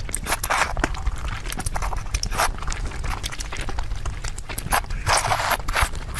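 Close-miked eating sounds: wet chewing and mouth smacks with short crunchy or slurping bursts, coming irregularly several times a second.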